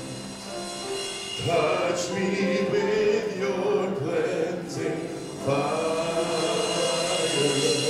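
Church worship team singing a slow worship song, male voices in held phrases into microphones over electric guitar and bass.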